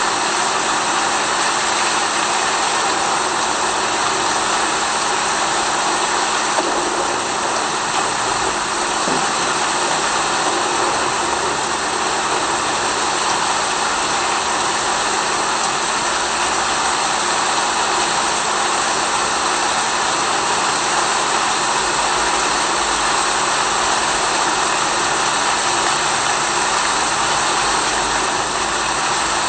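Steady, dense hiss of rain sounds, unchanging throughout, with a faint low steady hum underneath.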